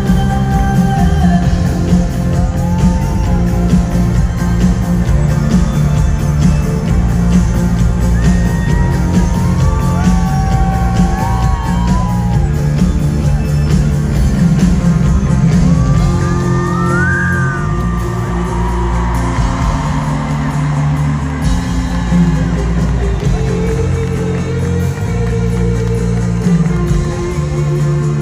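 Electropop band playing live through an arena PA, heard from among the crowd: a heavy bass and drum beat with guitar and synth lines, and a voice singing at times.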